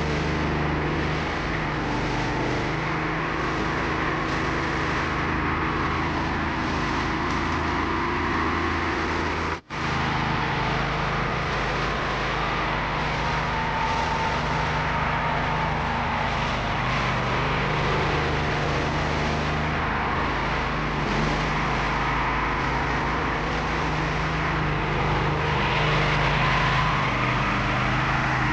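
Motorcycle engine of a becak motor running steadily, breaking off for a moment about ten seconds in.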